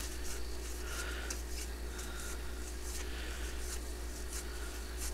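Paper trading cards sliding and rubbing against each other as they are moved through by hand, a soft irregular scratchy rustle.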